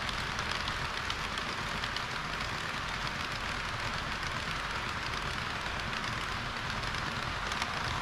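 HO-scale model trains, a KiHa 40 railcar set and a train of tank wagons, rolling past on the layout track: a steady rushing hiss of wheels running on the rails.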